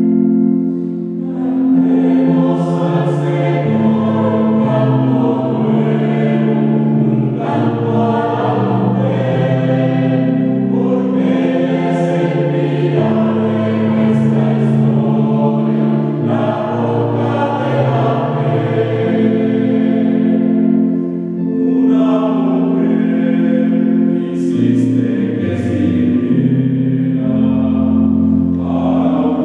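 Mixed choir of men's and women's voices singing in held chords that change every second or two, with the 's' consonants standing out. The singing breaks briefly between phrases about a second in and again about twenty seconds in.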